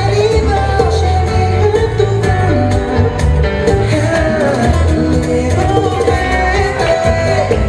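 Latin dance music with a singer's voice over guitar and steady percussion, played loud.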